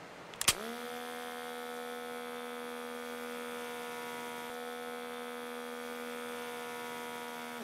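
A push-button clicks, then a small DC motor spins up and runs with a steady, even hum. It is the cardboard piggy-bank ATM's note-feeding motor, drawing a banknote in through the slot.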